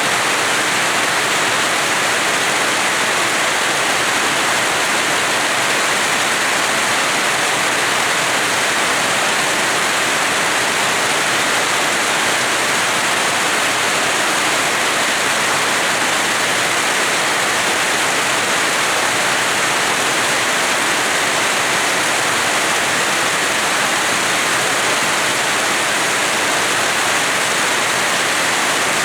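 Steady rain falling: an even hiss that does not let up.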